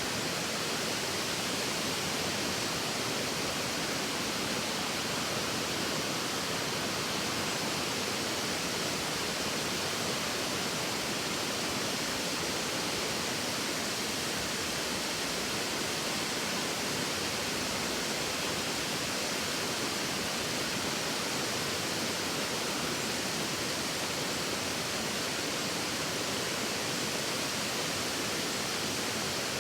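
Waterfall pouring into a river pool: a steady, unbroken rush of falling water.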